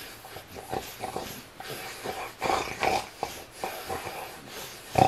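A small dog making short, irregular vocal noises while a man kisses and nuzzles its belly, with wet mouth and kissing sounds mixed in; the loudest noise comes near the end.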